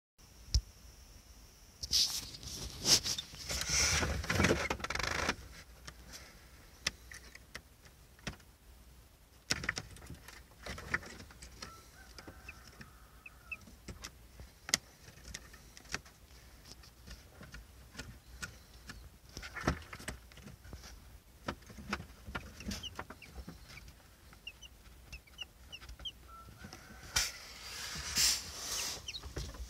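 Newly hatched chicks peeping with short, high cheeps now and then. Louder rustling and knocks from handling come in clusters, loudest a few seconds in and near the end.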